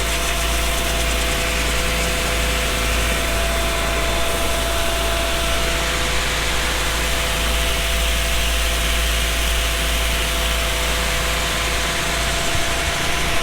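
Seed tender's conveyor and engine running steadily as soybean seed is loaded into a planter, a constant hum with a steady whine over it.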